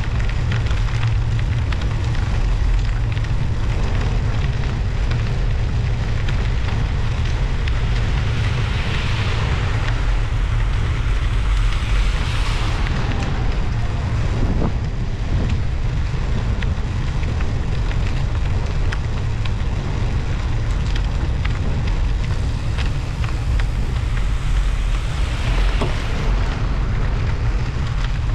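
Wind buffeting a bike-mounted action camera's microphone as a rumble, over the crackling hiss of Schwalbe Marathon Winter Plus studded tyres rolling on snow and slush. A few louder hissing swells rise and fade, about a third of the way in and again near the end.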